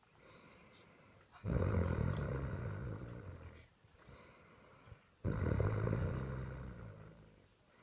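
A sleeping person snoring: two loud, low snores about four seconds apart, each starting suddenly and fading away over about two seconds.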